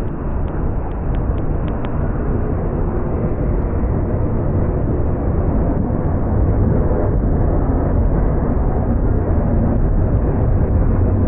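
Freight train rolling past close by: a steady, heavy rumble of steel wheels on the rails, with a few light clicks in the first two seconds, growing louder about six seconds in.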